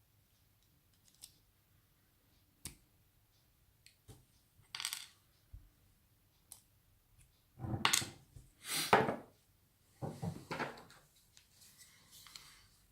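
Small metal clicks, clinks and scrapes of an Abus 83 padlock's parts being handled while it is taken apart, with the louder scraping clinks in the second half.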